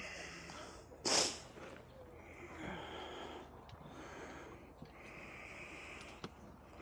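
A person breathing close to the microphone, with one loud, short breath noise about a second in.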